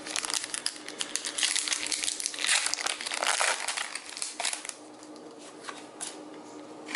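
Foil Pokémon booster pack wrapper crinkling as it is torn open by hand: a dense crackle for about four and a half seconds, then only a few faint rustles.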